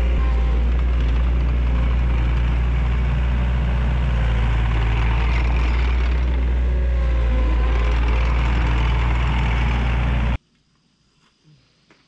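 Engine of a tracked earthmoving machine with a bucket running steadily while grading dirt, with a strong low hum. It cuts off abruptly about ten seconds in, leaving near silence.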